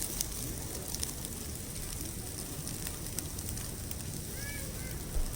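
Firewood crackling in a fire pit with scattered sharp pops, over a steady low rumble. There is a brief low bump near the end.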